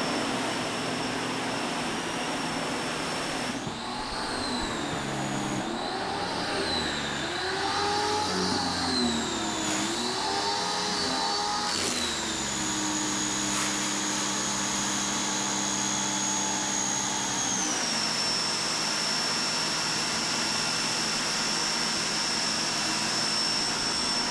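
RYOBI 1800 PSI electric pressure washer running with a spray hiss: its motor whine rises and falls several times between about four and twelve seconds in, ramping up and down while building pressure, which the owner puts down to air left in the hose. It then runs steadily, dropping a little in pitch about two-thirds of the way through.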